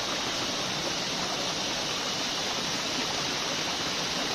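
Steady rush of fast-flowing stream water, an even, unbroken noise.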